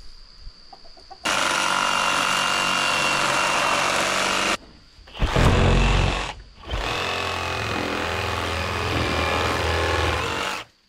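Chickens clucking and squawking loudly and close up, in two long stretches of about three and four seconds that each start and stop abruptly. Between them comes a short, loud low rumble.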